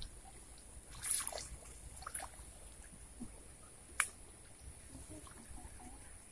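Faint small splashes and trickling of water being handled at the water's edge, with a sharp click about four seconds in, over a steady faint high hiss.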